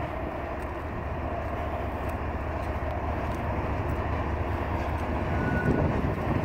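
Diesel locomotives of a freight train, led by a GE ES44AC, rumbling steadily as they pass, growing slightly louder.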